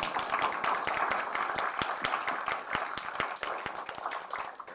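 Small audience applauding, many hands clapping together, thinning out toward the end.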